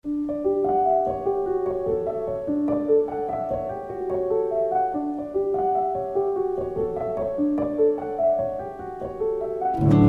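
Background piano music: a slow melody of held notes, with a fuller, louder chord coming in at the very end.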